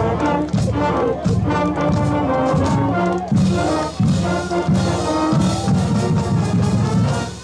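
High school marching band playing a loud brass passage: sustained chords over a heavy low brass line, punctuated by sharp accents.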